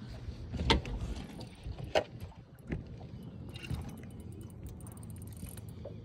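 A few sharp knocks on a boat, the loudest about two seconds in, over a steady low rumble.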